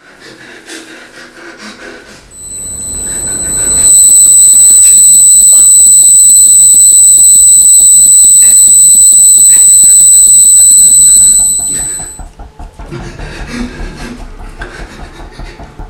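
A loud, piercing high-pitched whine: a single steady tone that swells in over about two seconds, holds for about eight seconds, then fades away, like a film's ear-ringing sound effect. Quieter, indistinct low sounds come before and after it.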